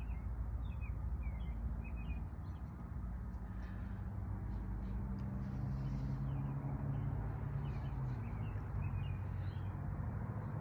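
Small birds chirping in short, high calls over a steady low engine rumble, whose hum grows stronger through the middle.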